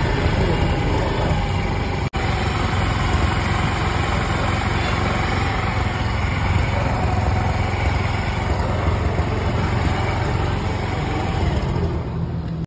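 Honda Activa scooter's single-cylinder four-stroke engine idling steadily on its newly fitted carburettor, with a brief break in the sound about two seconds in.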